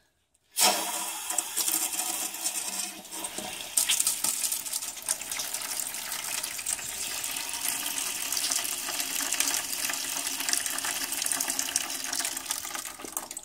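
Water draining from a Rheem gas water heater through a pipe and splashing steadily into a bucket, starting about half a second in. The tank is being partly drained so that it airlocks and holds its water while the gas valve is off.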